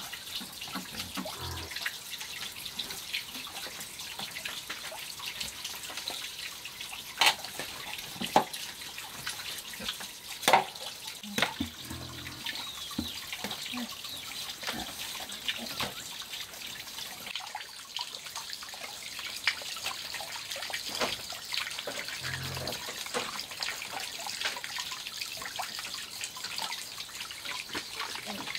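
Running water trickling steadily, with a few sharp knocks of a knife striking the board as pork belly is cut, a quarter of the way in.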